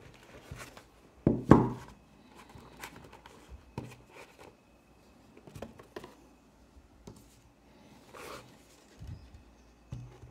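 Stiff cardboard foldout case of a Blu-ray box set being handled and unfolded on a table: scattered taps, knocks and scrapes of the panels, the loudest a couple of knocks about a second and a half in and a few more near the end.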